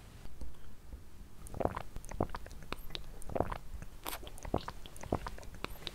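Gulping and swallowing as drinks are downed from glasses: a scatter of small, irregular gulps and clicks.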